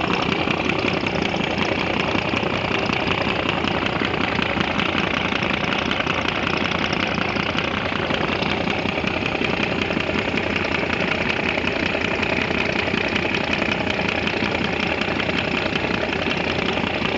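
A river passenger launch's engine running steadily under way, a continuous engine drone with no breaks, as the propeller churns the water alongside.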